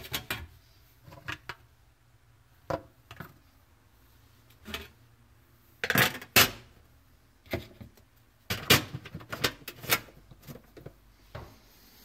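Irregular clicks and clatters of hands handling parts at the bottom of a Neff dishwasher's stainless-steel tub, around the sump filter, with the loudest pair of knocks about halfway through and a quicker run of clatters a little later.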